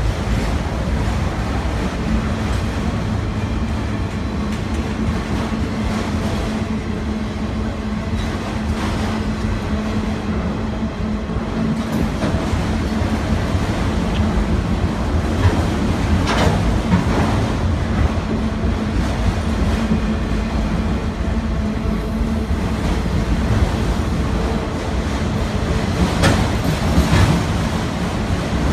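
Train rolling steadily along track laid down the middle of a road: a continuous rumble with a steady low hum, and brief sharper rattles about sixteen and twenty-six seconds in.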